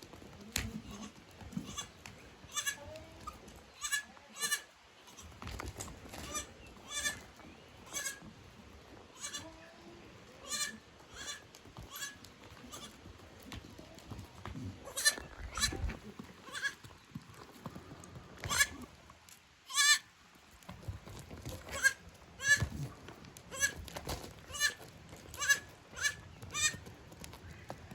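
Goats bleating: a long run of short, sharp calls repeated irregularly, some of them loud.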